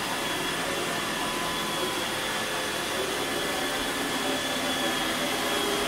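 A steady mechanical whir from a running motor or fan, with a thin high whine over it, unchanging throughout.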